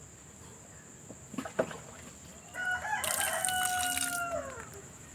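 A single long, drawn-out animal call about two and a half seconds in, held at one pitch for nearly two seconds and falling away at the end, after a couple of faint clicks.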